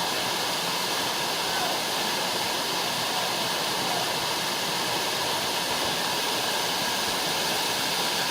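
Steady rushing roar of a tall rainforest waterfall, falling water that does not change throughout.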